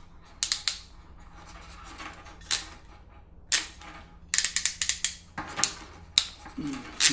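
Crimp tool clicking and snapping in a series of sharp, irregular clicks, with a quick run of them in the middle, as it squeezes a crimp connector closed over flat copper tape.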